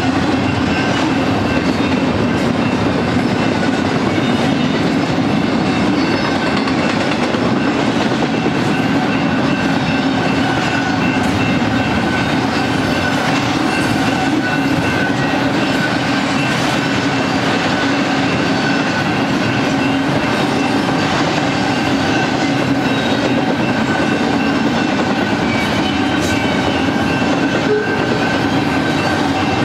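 Double-stack intermodal container train rolling past close by: a steady loud rumble of wheels on rail, with a few steady tones riding on it and no change in pace.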